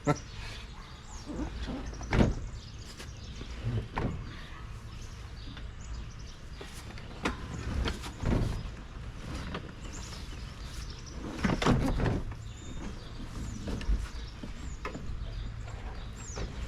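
A heavy part being hauled by hand out of a truck cab: irregular knocks, thumps and scraping against the cab's metal, several sharper knocks spread through.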